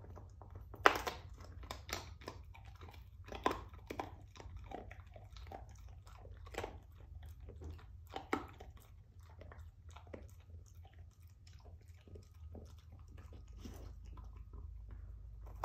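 Dog crunching and gnawing on a rawhide bone: irregular sharp crunches, the loudest about a second in, with fainter gnawing between.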